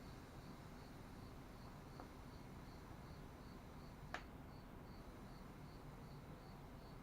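Near silence with faint, steady cricket chirping, about three chirps a second. A single sharp click comes about four seconds in.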